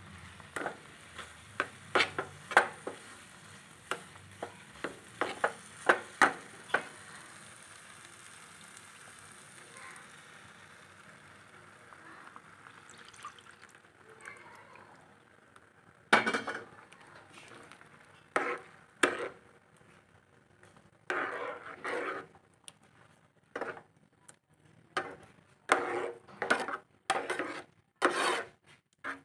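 A spoon stirring and scraping thick semolina halwa in a pan. Quick clinks against the pan come in the first few seconds over a faint sizzle that fades out, then a quiet stretch, then longer, louder scraping strokes from about halfway.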